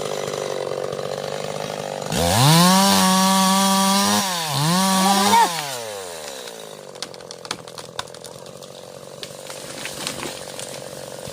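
Stihl MS 381 two-stroke chainsaw idling, then opened up to full throttle for about two seconds. It dips briefly, goes to full throttle again, and winds back down to idle. Scattered sharp clicks sound over the idle near the end.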